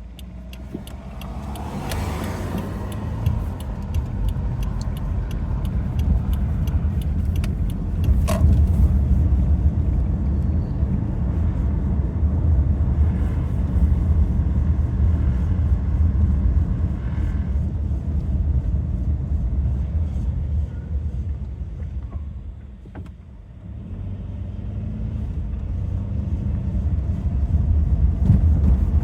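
Cabin sound of a 2015 Subaru Forester's 2.5 L flat-four and CVT at low speed: a steady road and engine rumble. About halfway through, with the throttle released, the CVT gives a loud whine-like sound for about a second as it engine-brakes, just before the rpm drops. The owner suspects this is not normal CVT behaviour.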